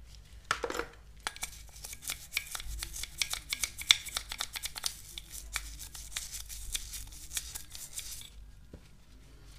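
Toothbrush scrubbing the inside of a Polini PWK 30 mm carburettor's metal float bowl: quick, scratchy strokes of bristles on metal, stopping about eight seconds in. The scrubbing clears out the salt-like deposits that collect in the bowl.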